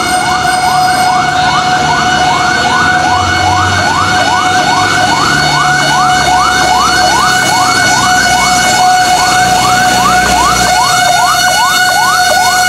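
Fire truck siren in a fast yelp: rising sweeps repeating about three times a second over a steady high tone.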